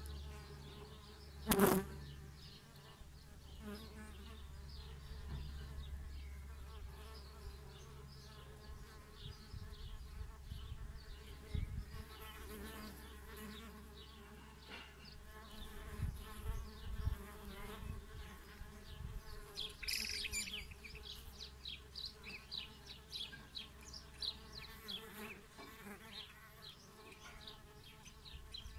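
Wild bees buzzing as they fly around the nest holes of a wooden insect hotel, with a single sharp click about one and a half seconds in.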